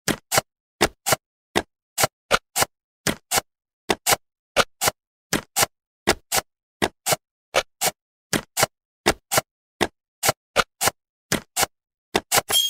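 Jigsaw puzzle pieces snapping into place: a run of short, sharp clicks, about two to three a second, coming a little quicker near the end as the picture is completed.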